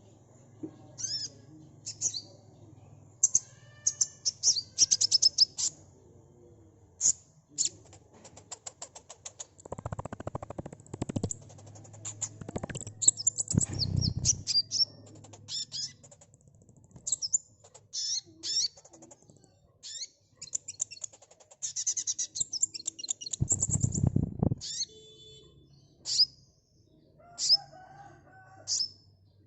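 Sunbird singing in quick bursts of high, sharp chirps and fast rattling trills, the kind of agitated song bird-keepers play to provoke young birds into answering. A faint low hum runs underneath, and a few dull low thuds come about a third of the way in and again near the end.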